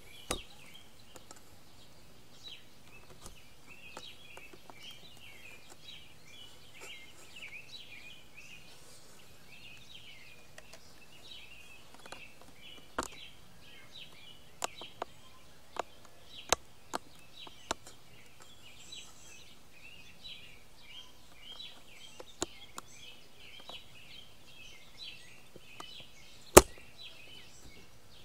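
Outdoor background of continuous high-pitched chirping, broken by a few sharp clicks and taps in the second half, one much louder than the rest near the end.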